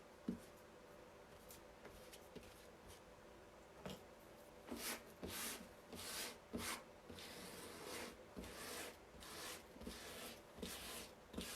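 Squeegee scraping shimmer paste across a silkscreen transfer: short, faint, scratchy strokes. They begin about halfway through and repeat roughly one to two times a second.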